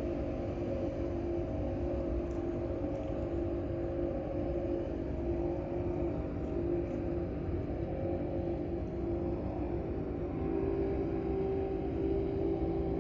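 Boat engines droning across the river: a steady low rumble with a held engine tone that shifts up slightly and grows a little louder about ten seconds in.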